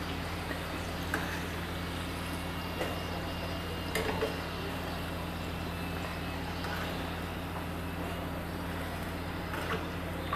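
Hot oil sizzling steadily in a frying pan as deep-fried samosa rolls are lifted out with metal tongs, with a few light clicks of the tongs, over a low steady hum.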